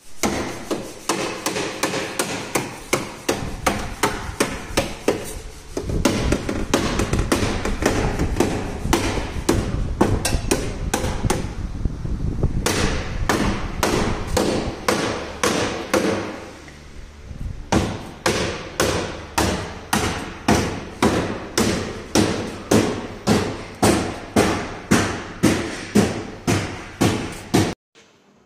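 Repeated hammer blows on metal: a dense, uneven run of strikes at first, then a steady beat of about one and a half blows a second, each one ringing briefly.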